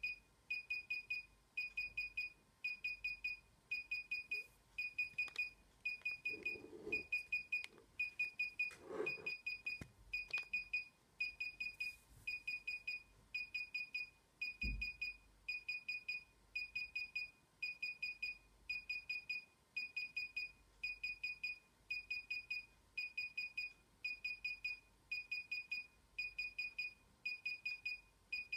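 DJI Inspire 1 remote controller beeping steadily while its firmware installs: short groups of quick high beeps, about three groups every two seconds. A dull low thump about halfway through.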